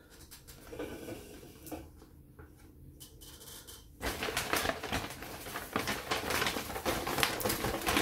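Paper takeaway bag rustling and crinkling as things are pulled out of it, starting about halfway through after a few seconds of quiet handling.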